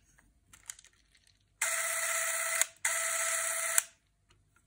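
Beaulieu 4008 ZM4 Super 8 camera's electric drive running in two short runs of about a second each, a steady whir that starts and stops abruptly, with a brief break between runs. Faint handling clicks come before and after.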